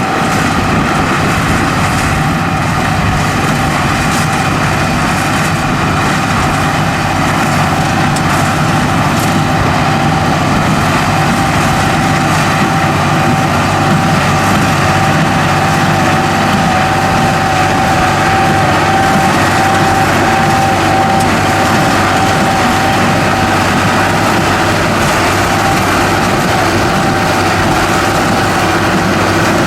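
Heavy farm machinery's diesel engine running steadily, with a thin steady whine above the engine noise through the middle of the stretch.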